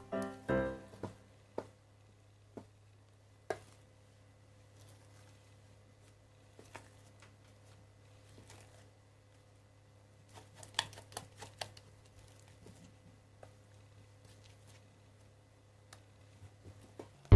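Light scrapes and taps of a spatula against a stainless steel mixing bowl as thick whipped mascarpone cream is scooped out, a few single taps early on and a quick cluster about ten to twelve seconds in, over a faint steady hum.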